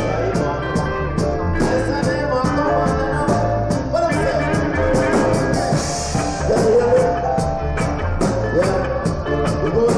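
Live band playing amplified music with a steady beat.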